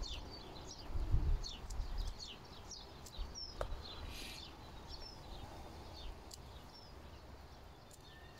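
Small songbirds chirping in quick, short, falling notes, busiest in the first half, over a low rumble of wind or handling on the microphone that swells about a second in. A single sharp click about three and a half seconds in.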